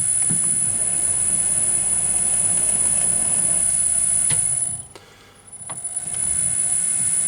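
Metal lathe running with a steady high-pitched whine and a few light knocks. The sound dips out briefly about five seconds in, then returns.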